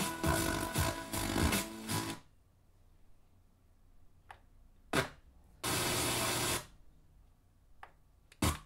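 Yamaha HTR-5730 receiver's FM tuner being stepped through frequencies: about two seconds of a station's sound at the start, then mostly quiet with a sharp click, a second-long burst of static a little past halfway, and a short pop near the end as it moves between stations.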